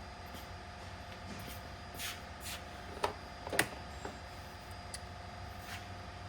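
Light handling noises from work on the trap's throwing arm and its poly strip: a few short scrapes and clicks, the sharpest about three and a half seconds in, over a steady hum.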